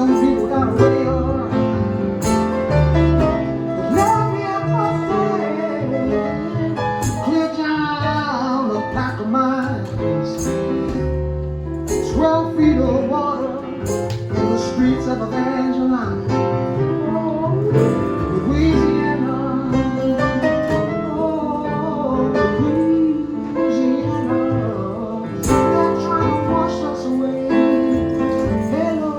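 Live music: a song played with guitar and other instruments, with a voice singing over it.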